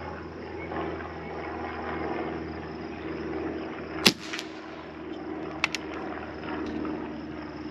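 A single shot from a BSA Gold Star SE .177 regulated PCP air rifle about four seconds in, a short sharp crack. About a second and a half later come two light clicks.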